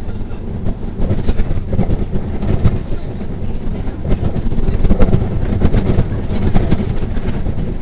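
Interior noise of a Neoplan city bus on the move: the engine and tyres rumbling low and steady, with frequent irregular knocks and rattles from the body and fittings as it rides over a rough, torn-up road.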